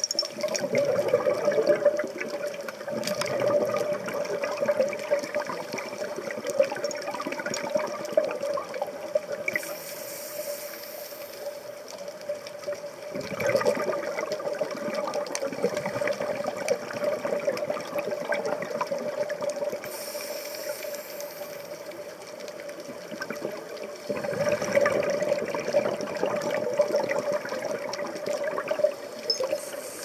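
Scuba regulator breathing heard underwater: a short hiss of inhalation through the regulator, then a longer burst of exhaled bubbles, repeating about every ten seconds, over a steady hum.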